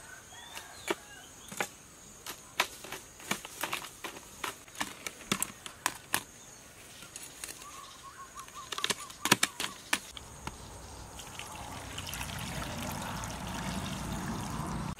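Crabs and metal tongs clicking and knocking against a plastic jar, a run of sharp separate clacks. From about ten seconds in, brown liquid is poured from a ceramic bowl into the jar of crabs, a steady pouring sound that grows louder until it cuts off suddenly.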